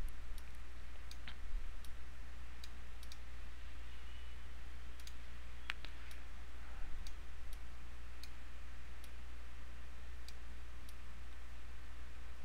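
Scattered, irregular clicks of a computer mouse and keyboard, over a low steady hum.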